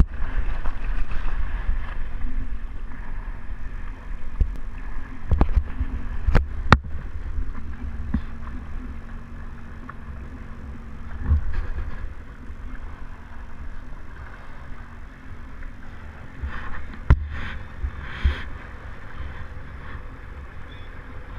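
Low rumble and wind buffeting on the microphone of an action camera on a jet ski idling on open water, with water gurgling against the hull. A few sharp knocks come about a quarter of the way in and again later on.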